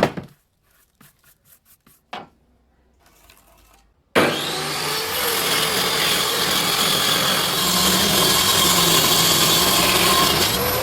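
A few light knocks and taps, then about four seconds in a power tool starts abruptly working the wood and runs on loud and steady.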